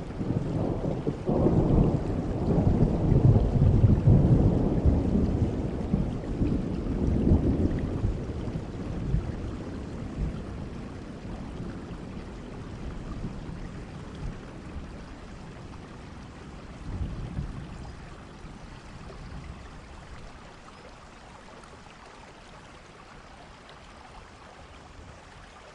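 Steady rain with a long rumble of thunder that swells about a second in and rolls away over several seconds, and a smaller rumble later. The rain grows gradually quieter toward the end.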